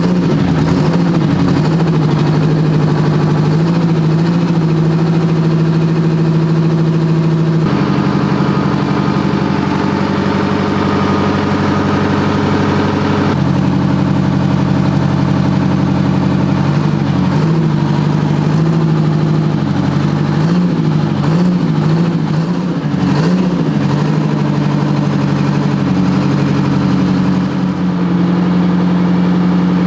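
Detroit Diesel 8V71T two-stroke V8 diesel running steadily on its first start after restoration, with no exhaust pipe fitted so it blows straight out of the turbo. The engine speed rises and falls slightly a few times around the middle.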